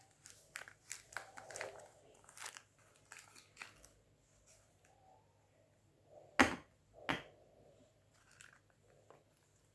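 Soap bar wrapper being unwrapped: quick crinkling and tearing of the paper and plastic packaging, then two sharp knocks a little over half a second apart, more than halfway through.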